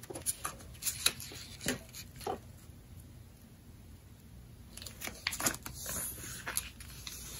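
A sheet of printer paper being folded and creased by hand, with scattered short rustles and crinkles and a quieter pause in the middle.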